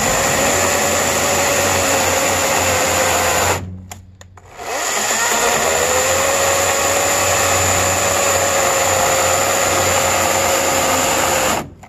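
EGO 14-inch cordless electric chainsaw running at a steady whine as it cuts a hardwood block on a nearly flat battery. The motor stops for about a second a third of the way in, starts again, then cuts out near the end as the battery gives out.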